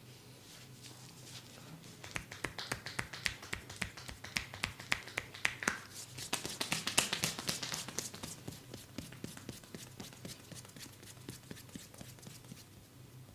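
Rapid series of sharp hand strikes from a percussive barber massage, several a second, building to loudest about seven seconds in and thinning out toward the end.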